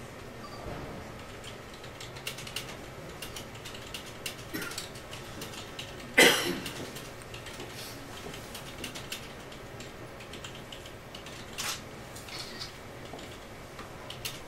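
Pen scratching on a sheet of paper as a note is written by hand, with scattered small clicks and taps. A short, sudden, louder sound comes about six seconds in.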